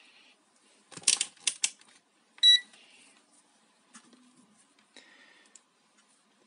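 Plastic mains plug and cord handled with a few quick clicks and taps, then a single short beep from the digital multimeter's continuity buzzer about two and a half seconds in, the signal that the probes have found a closed path through the hotplate's cord.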